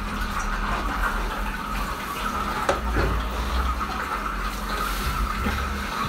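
Steady rush of running water from a tap, with a couple of light knocks about three seconds in as the hanging fern's pot is lifted and handled.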